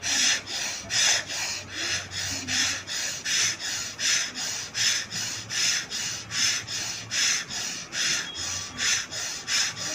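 Bhastrika pranayama (bellows breath): a woman breathing forcefully in and out through the nose at a fast, even pace, nearly three sharp breaths a second.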